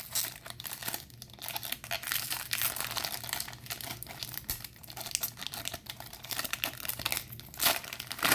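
Foil wrapper of a 2018 Bowman Chrome trading-card pack being torn open and crinkled by hand, a continuous irregular crackling.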